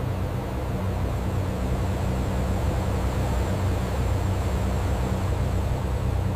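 Steady engine drone: a low hum with a noisy wash over it and a faint high whine, holding even throughout.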